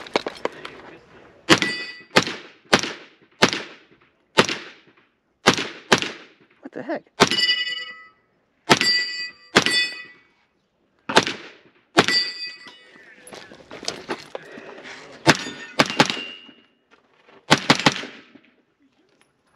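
Gunshots fired in a string of about fifteen at an uneven pace, as at a multigun match stage. Several shots are followed by the ringing of steel targets being hit.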